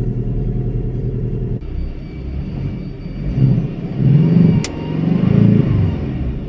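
Porsche 718 Cayman's 2.0-litre turbocharged flat-four engine running loud with a deep rumble. It is revved a few times from about three seconds in, the pitch rising and falling with each blip.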